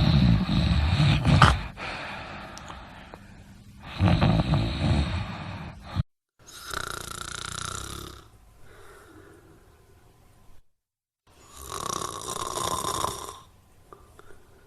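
Four loud snores, each a second or two long: the first two deep, the last two higher-pitched. Two brief dead silences fall between them where the clips are cut together.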